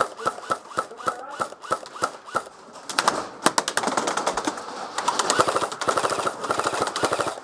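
Airsoft rifles firing: single shots a few times a second at first, then rapid full-auto bursts from about three seconds in.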